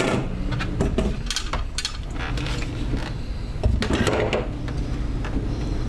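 Irregular clinks and knocks of a utensil against the food processor's bowl and a pan as its contents are scooped out, over a steady low hum.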